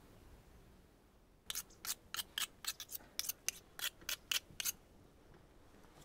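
A quick, uneven run of about thirteen sharp snips, starting about a second and a half in and stopping some three seconds later.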